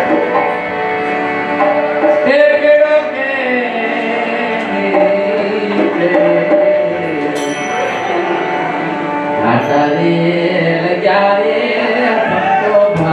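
A man singing a Hindi song with instrumental accompaniment.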